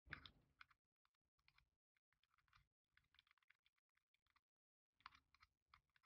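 Faint clicking and rattling of a 3D-printed plastic joystick gimbal being handled and worked in the hands. The clicks come in irregular clusters with short pauses between them.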